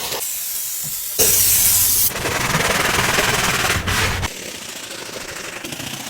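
Pressure washer spraying in hissing bursts that change abruptly, loudest and brightest from about one to two seconds in, then quieter toward the end.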